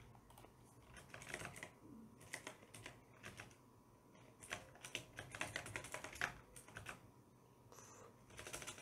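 Faint computer keyboard typing: several short bursts of rapid keystrokes separated by brief pauses.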